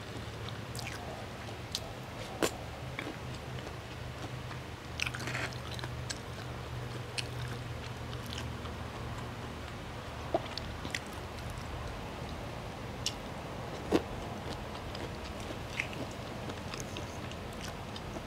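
A person chewing a mouthful of spaghetti aglio olio with prawns, with scattered sharp clicks over a steady low hum.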